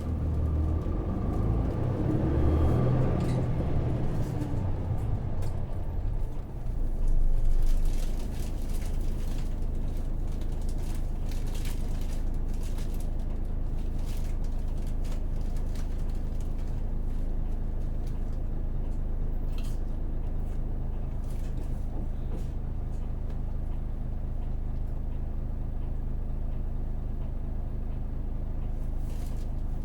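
Hino PJ-KV234L1 city bus with its Isuzu 6HK1 six-cylinder diesel, heard from inside the cabin. The engine and running noise shift during the first few seconds, surge briefly about seven seconds in, then settle into a steady idle with a few light clicks.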